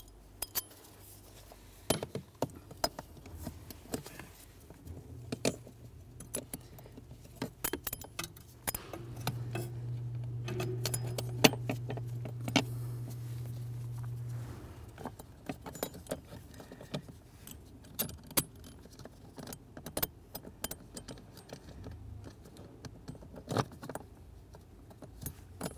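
Light metallic clinks and taps as a steel mounting bracket and its small bolts are handled and started by hand over a plastic blend door actuator. A low steady hum comes in a few seconds in, is louder through the middle, and stops about halfway through.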